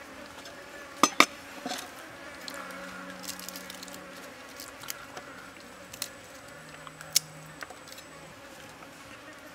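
Kitchen knife knocking on a thick wooden chopping block as garlic is peeled and cut: two sharp knocks about a second in and a few lighter ones later. Flies and bees buzz on and off throughout.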